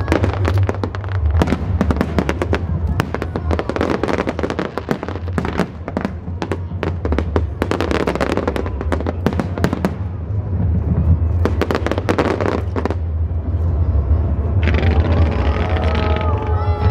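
Fireworks display: many shells bursting in quick succession, a dense run of sharp bangs and crackles over a steady low rumble.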